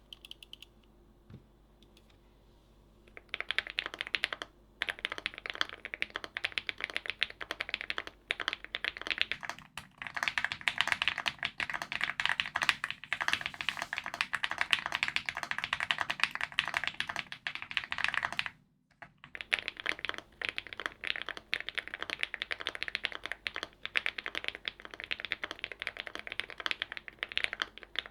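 Fast, continuous typing on a custom mechanical keyboard: dense clacking keystrokes that begin about three seconds in. A brief break about two-thirds of the way through, after which the typing resumes.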